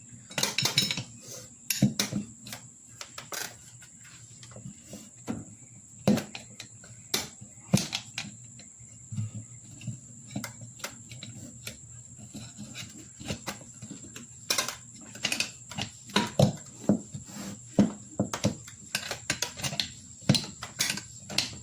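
Irregular clicks, knocks and scrapes of tire tools and hands working a riding lawnmower tire's bead off its rim, over a steady high insect drone.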